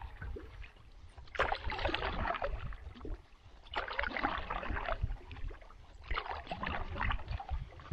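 Canoe paddle strokes in lake water, three strokes about every two and a half seconds, each a short swish and splash of the blade pulling through.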